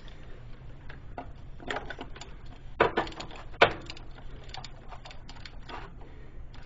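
Oil filter housing cap on a 2007 Saturn Ion 2.2 engine being screwed down: small scrapes and clicks as it turns, with two sharper knocks, each with a short ring, about three and three and a half seconds in.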